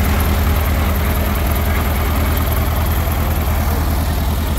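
A heavy vehicle engine idling steadily with a deep, even throb.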